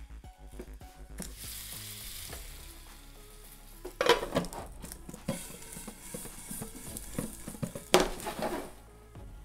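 Cauliflower sizzling as it fries in a frying pan, with a spoon stirring and scraping it. Two louder bursts of clattering and sizzling come about four and eight seconds in, as the glass lid is moved.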